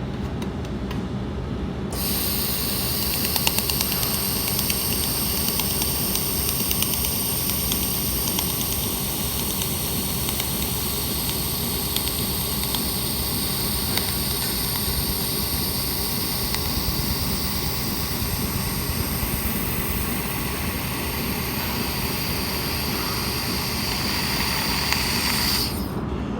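A 300 W handheld laser welding machine running with a steady low hum; a loud hiss with steady high tones from the welding gun starts about two seconds in and cuts off shortly before the end, as 1 mm brass is welded.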